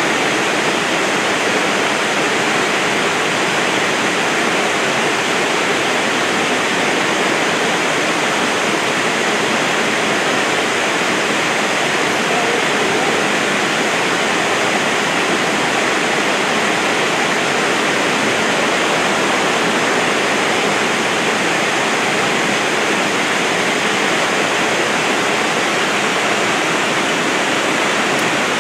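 Dry Falls, a waterfall on the Cullasaja River, pouring over a rock ledge: a steady, loud, even rush of falling water.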